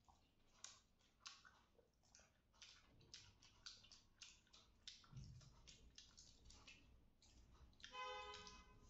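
Close-up eating sounds: quick wet clicks and lip smacks of chewing rice eaten by hand, with a soft low thump about five seconds in and a brief hummed voice near the end.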